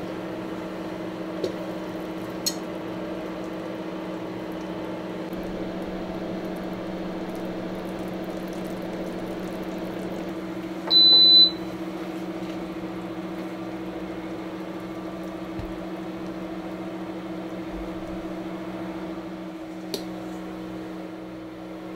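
Induction cooktop humming steadily under a cast-iron pan, with a single short, high electronic beep about eleven seconds in and a few light clicks.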